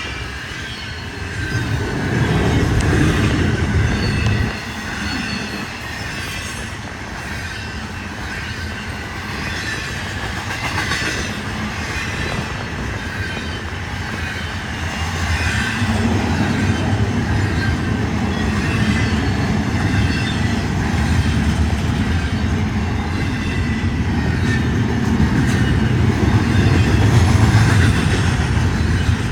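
Freight train rolling past, its steel wheels squealing against the rails, with clickety-clack over rail joints. A low rumble swells about two seconds in, drops back about four and a half seconds in, and rises again from about sixteen seconds on.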